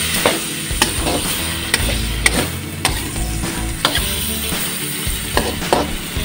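A cooking utensil scraping and clacking against a frying pan as sliced chayote and chicken are stir-fried, with sharp knocks about twice a second over a steady sizzle.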